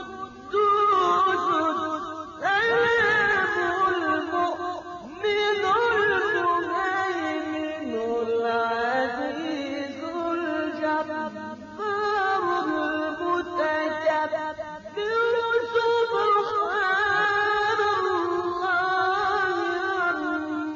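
A male reciter chanting the Quran in the melodic tajweed style, drawing out long ornamented notes that glide up and down, in phrases of a few seconds with short pauses for breath between them.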